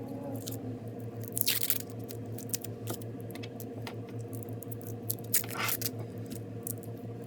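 Thin protective plastic film being peeled off a stainless steel watch bracelet, crinkling and crackling in short irregular rustles.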